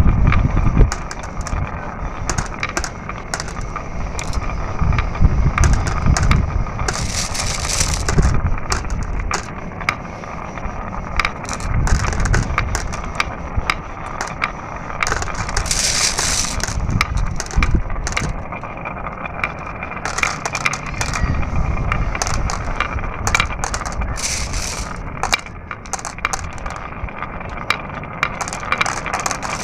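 Marbles rolling down a marble run track: a continuous rolling rumble that swells and fades every few seconds, with many sharp clicks and clacks as the marbles strike the track and each other.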